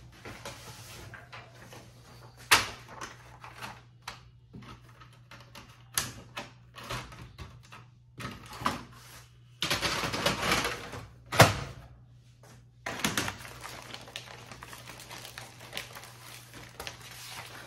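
Plastic clicks, knocks and rustling as the paper tray of a Brother DCP-L2531DW laser printer is loaded: the paper guide is slid and clicked, the sheets are handled and the tray is pushed back in. There is a sharp click about two and a half seconds in and a louder stretch of sliding and rattling around ten to eleven seconds in, ending in another sharp click.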